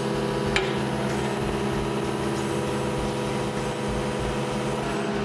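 Diesel engine of a YANMAR SV40 mini excavator running at a steady speed while the bucket and new hydraulic thumb are cycled to work air out of the thumb circuit. A single short clack about half a second in.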